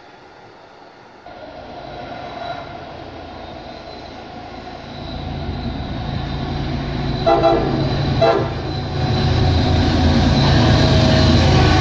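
MBTA commuter train's diesel locomotive approaching, its engine rumble growing louder. It sounds two short blasts on its horn, about seven and eight seconds in.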